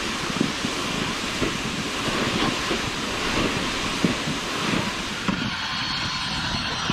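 Wind buffeting the microphone out on the ice: a steady rushing hiss with an uneven low rumble.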